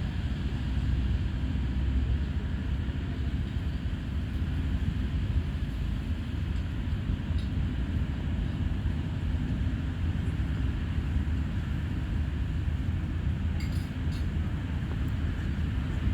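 Steady low rumbling background noise, with a few faint clinks about halfway through and again near the end.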